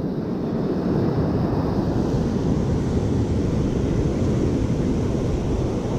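Steady wind rumbling on the microphone over the continuous wash of ocean surf.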